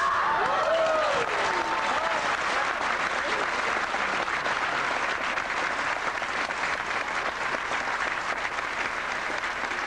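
Crowd applauding steadily, with a few rising-and-falling cheers in the first two seconds.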